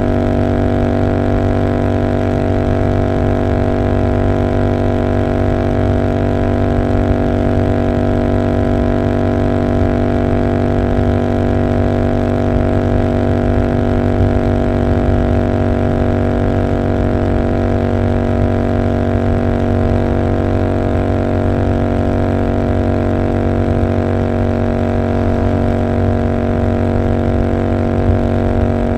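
Royal Enfield Continental GT 650's parallel-twin engine with Emgo cafe mufflers, running at steady revs while the bike cruises: one even exhaust drone that holds its pitch throughout, with wind rush underneath.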